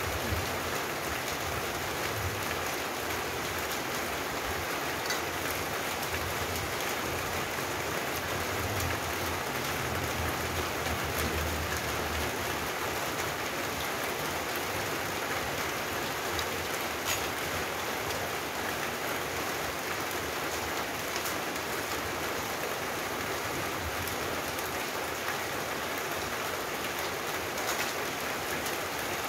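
Steady rain falling: an even hiss with scattered drops.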